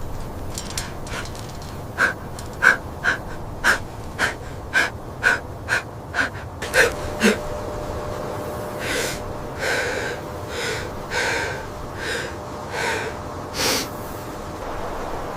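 Dog gasping for breath: a run of short, sharp gasps about two a second, then slower, longer wheezing breaths.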